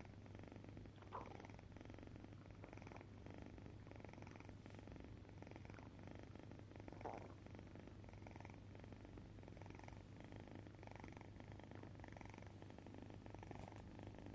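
A cat snoring softly: faint, rhythmic breathing sounds about once a second, with two brief louder catches in the breath, about a second in and about seven seconds in.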